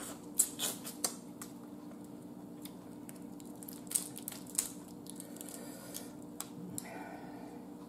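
Boiled blue crab being cracked and picked apart by hand: scattered sharp snaps of shell breaking, with wet squishing and sucking of the meat. A faint steady low hum sits beneath.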